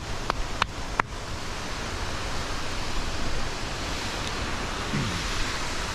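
Steady rushing of a waterfall, with a few sharp clicks in the first second.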